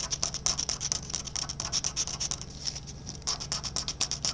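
Scratch-off lottery ticket being scratched: quick, repeated scraping strokes across the ticket's coating, several a second, with a short pause about two and a half seconds in.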